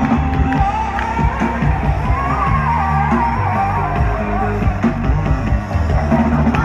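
Live electronic music played loud over a stage PA, with heavy steady bass and a wavering lead melody.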